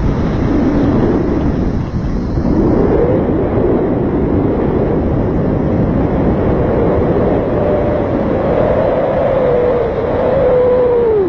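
Airflow buffeting the microphone during a paraglider flight, a steady loud rush. A faint whistling tone rises about two seconds in, holds, and drops away sharply at the very end.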